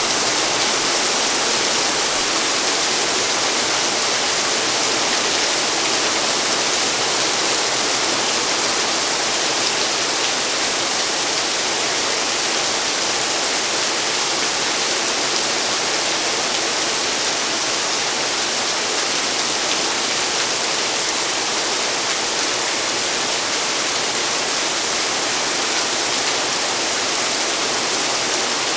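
Rain pouring down steadily, a dense, even hiss with no let-up.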